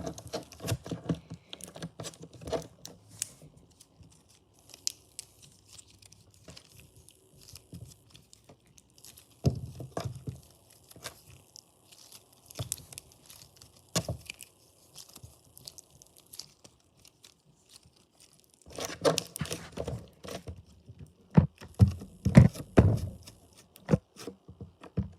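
Slime being squeezed and stretched by hand, making irregular sticky crackles and pops, louder in bursts near the end.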